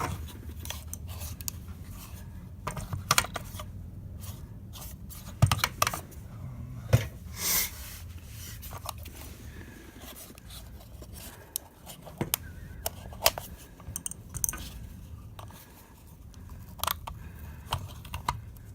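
Hands handling a removed car electronic module and its tools, prying at the case to open it: scattered clicks, taps and light rattles, with a short scrape about two-thirds of the way in, over a low steady hum.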